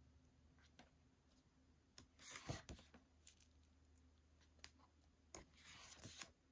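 Pages of a paperback photobook being turned by hand: two faint paper swishes, one about two seconds in and one near the end, with a few small ticks of handling between them.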